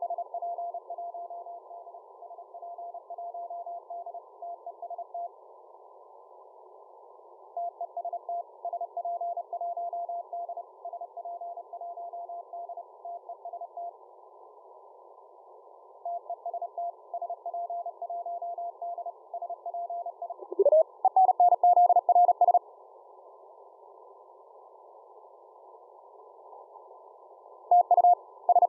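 Morse code on shortwave through a software-defined radio receiver: a tone of about 700 Hz keyed on and off in dots and dashes over narrow-filtered receiver hiss, in bursts with pauses between. About twenty seconds in, a short upward-sliding tone leads into a louder, faster-keyed signal.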